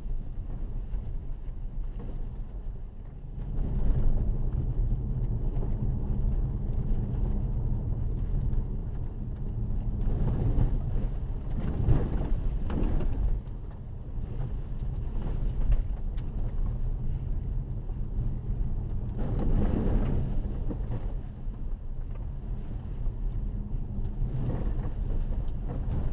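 Cabin noise of a Mercedes GLA 200 CDI 4Matic driving a wet, rutted dirt track: a steady low rumble from the four-cylinder diesel and the tyres. It steps up about four seconds in, and louder surges of tyre and road noise come around ten to thirteen seconds and again about twenty seconds in.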